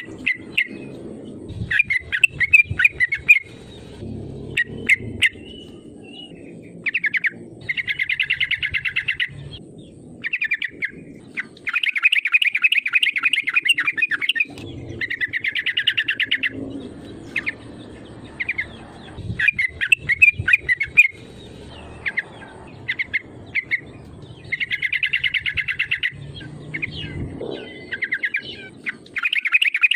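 Yellow-vented bulbul (trucukan) singing: repeated phrases of fast bubbling notes, each a second or two long, broken by short pauses.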